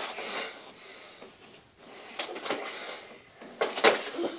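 Sharp thumps and smacks of gloved punches in play-boxing, a few scattered strokes with the loudest a little under four seconds in.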